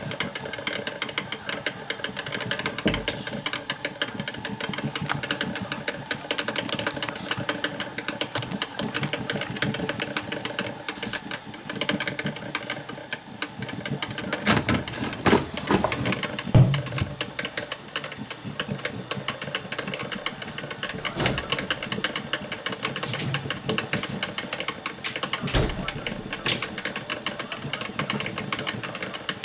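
Drip coffee maker brewing: a steady rapid sputtering clatter, with a few louder knocks about halfway through and near the end.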